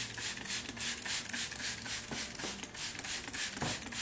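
Hand trigger spray bottle spraying leather cleaner onto a leather cushion in quick repeated hissing squirts, several a second.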